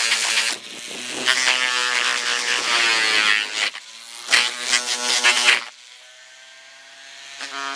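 Small electric buffing tool buzzing as it polishes a lens, its pitch wavering under load. It drops out briefly about four seconds in, runs faint for a second or two after that, and picks up again near the end.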